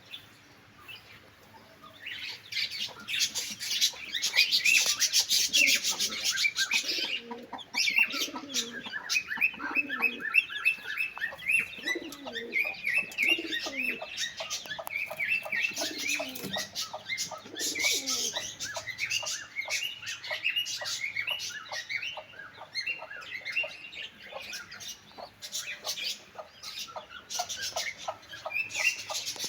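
A crowd of birds calling together: dense, rapid high chirps and twitters throughout, with lower calls mixed in through the middle stretch.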